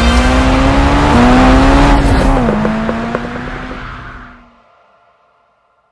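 The MINI John Cooper Works GP Concept's engine accelerating hard. Its pitch climbs with a brief break about a second in, drops a little after two seconds, then the sound fades out.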